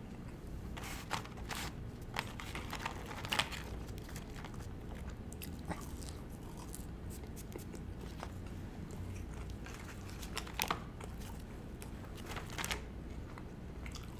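A person chewing with scattered crisp crunches and small bites, close to the microphone; the crunches are loudest about three seconds in and again near the end.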